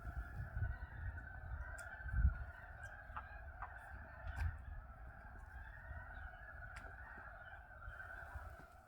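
Frogs croaking in a steady, continuous chorus, with a few low thumps underneath, the loudest about two seconds in.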